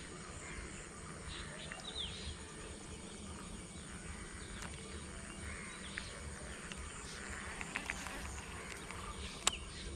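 Faint rural outdoor ambience with a low rumble and scattered short high chirps. A few sharp clicks come near the end, the loudest just before it finishes.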